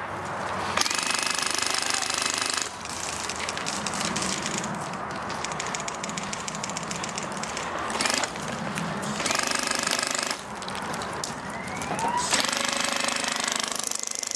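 Classic Army M132 Microgun, an HPA-powered airsoft minigun, firing in long bursts: a rapid, buzzing rattle of shots over the whine of the spinning barrels. It is loudest about a second in, again around eight seconds, and from about twelve seconds on, with a rising whine just before the last burst.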